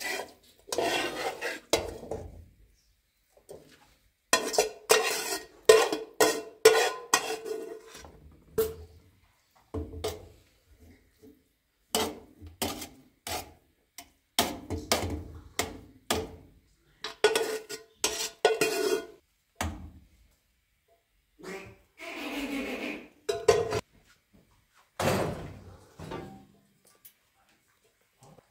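Irregular clattering: bursts of sharp knocks and clinks in quick succession, separated by short pauses, with a brief noisy stretch about two-thirds of the way through.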